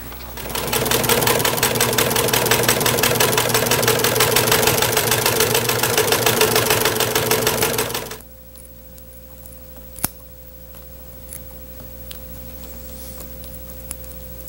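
Industrial sewing machine running at a steady fast stitch for about seven and a half seconds as it sews a black vinyl strap with white thread, then stopping suddenly. A faint steady hum continues afterward, with a few sharp clicks as scissors trim the strap's backing along the stitching.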